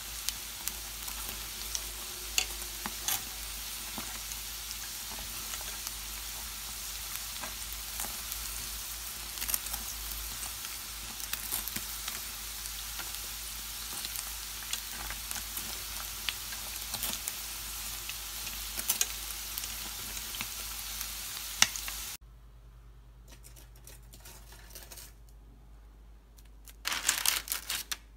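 Shrimp toast (menbosha) deep-frying in a pan of oil: a steady sizzle with scattered pops and crackles, which cuts off suddenly about 22 seconds in. A short burst of noise follows near the end.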